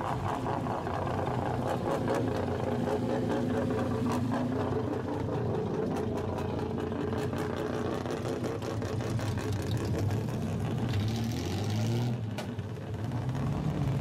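Engines and exhausts of lowered classic Japanese cars, including a Nissan Skyline C10, running as the cars pull slowly past one after another, with the engines revved up several times in the second half.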